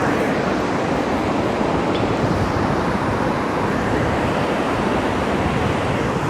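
Steady wash of ocean surf breaking on the beach, an even rushing noise with no distinct events.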